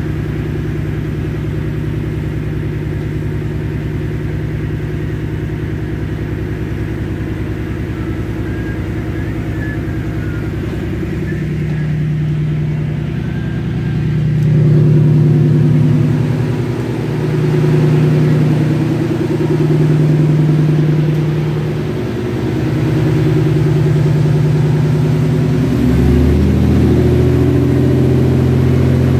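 IFA 6VD14 six-cylinder marine diesel engine running with the boat under way, a steady deep drone. About halfway through, the sound swells and dips several times, and near the end it turns fuller and deeper.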